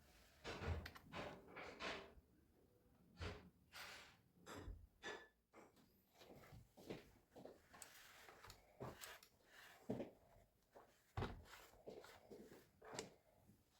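Faint, irregular clicks, taps and rustles, like hands handling small parts, with no motor running.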